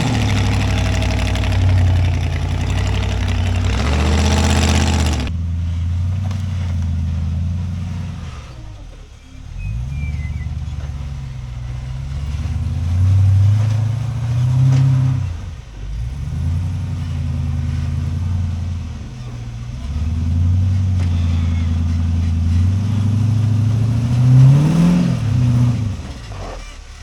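Rock crawler's engine running and revving in repeated swells as it works up a boulder trail. It is loud and rough for the first five seconds, then blips up and down several times, with one sharp rev that rises and falls near the end.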